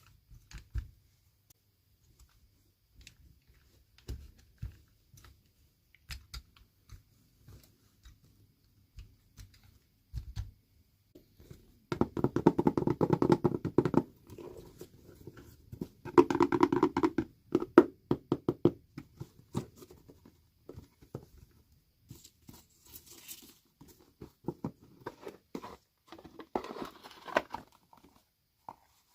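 Hands handling and opening small toy packaging: scattered light taps and clicks, with two bursts of crinkling and tearing about twelve and sixteen seconds in, and a short hissy rustle a few seconds later.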